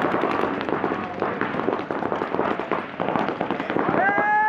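Paintball markers firing rapid, overlapping volleys of shots, with a long held call starting about four seconds in.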